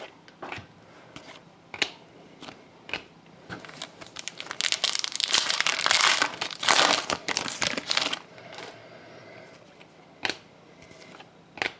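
A trading-card pack wrapper crinkling and tearing as a pack is opened, loudest for a few seconds in the middle. Before and after it come scattered light clicks of cards being handled.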